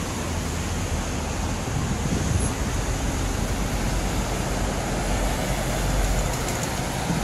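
Steady outdoor roar of beach ambience, heaviest in the low end, with no single event standing out.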